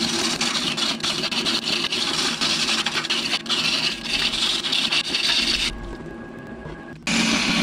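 A gouge cutting a spinning cherry-wood blank on a Record Power wood lathe, a steady rushing scrape of shavings peeling off. About three-quarters of the way through, the cutting stops for about a second, leaving only the quieter hum of the lathe, then starts again.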